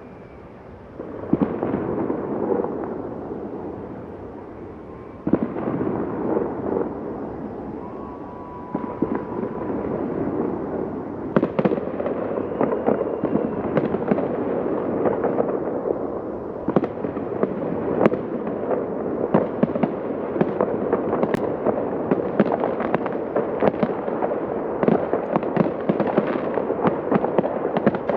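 Aerial fireworks display: separate shell bursts go off about a second in and twice more a few seconds apart, then the firing turns into a dense, continuous crackle of many sharp pops. Faint short whistles come up now and then among the bursts.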